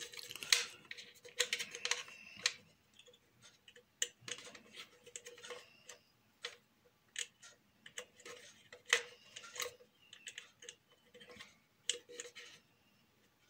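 Scattered light clicks and taps at an uneven pace: small Allen keys working the grub screws of a collar on the shaft of a Peco N gauge turntable, with the turntable's parts being handled.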